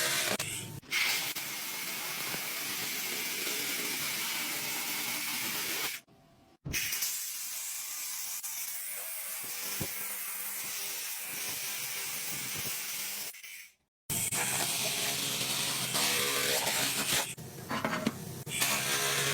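Steady hissing from a handheld fiber laser machine working on metal, with a low machine hum under it at times. It breaks off abruptly twice, about six and fourteen seconds in.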